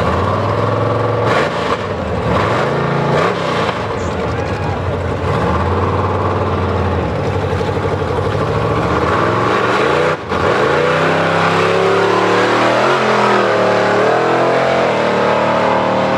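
Mud-racing truck's big engine revving in short blips while staged, then, after a brief break about ten seconds in, running at full throttle with the pitch climbing and dipping as it races down the mud track.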